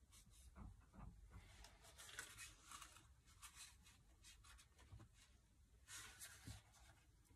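Faint rustling and dabbing of a paper tissue blotting wet ink on a sketchbook page, in a few short bursts.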